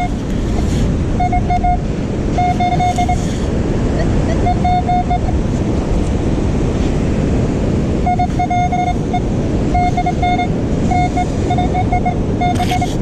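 Metal detector sounding its target tone: short beeps at one steady pitch, coming in irregular groups as it passes back and forth over a buried coin. Heavy wind noise and surf run underneath.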